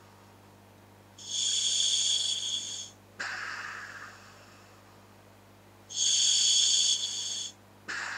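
Breathing through a scuba regulator fitted to a hooded gas mask: two breaths, each a loud, even hiss of the regulator's demand valve lasting about a second and a half, followed by an exhale that starts sharply and fades away.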